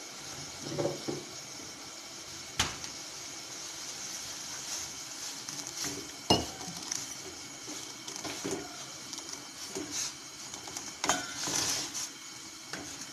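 Green tea leaves and baking soda boiling hard in a steel pot with a steady bubbling hiss, while a steel ladle scoops the brew up and pours it back in with splashing. The ladle clinks sharply against the pot twice, a few seconds apart.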